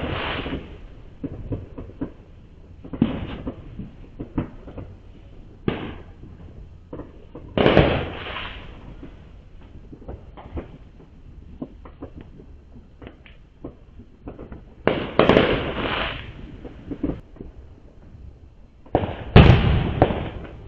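Neighbourhood fireworks going off: repeated loud booms with rumbling echoes, the biggest about 8, 15 and 19 seconds in, between scattered smaller pops and crackles. Heard through a security camera's microphone, which dulls the top end.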